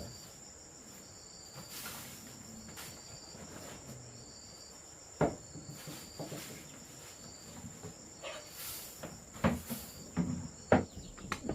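Steady high-pitched insect chirring, like crickets, running throughout. A few sharp knocks cut through it: one about five seconds in and several more near the end.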